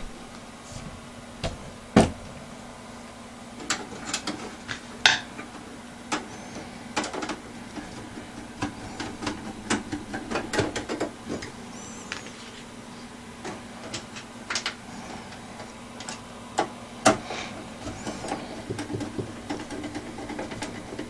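Irregular clicks and knocks of hard plastic and metal parts being handled on a Dell Inspiron 3646 desktop's case and hard drive cage, over a steady low hum. The sharpest knocks come about 2 s and 5 s in and near the end.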